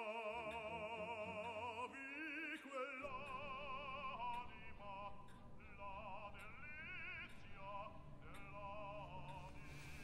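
Quiet operatic singing: a voice holding long notes with a wide, regular vibrato, over a low sustained accompaniment that comes in about three seconds in.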